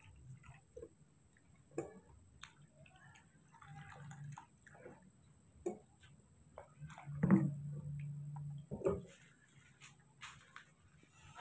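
Water dripping and a hand swishing in a plastic washbasin, with scattered light clicks and knocks of a kettle and basin being handled; the loudest knocks come about seven and nine seconds in.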